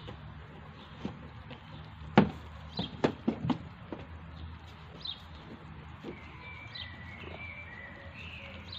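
Kittens eating dry food from a plastic tub, with a quick run of sharp clicks and knocks about two seconds in. Short high bird chirps come every second or two, and a longer bird call sounds near the end.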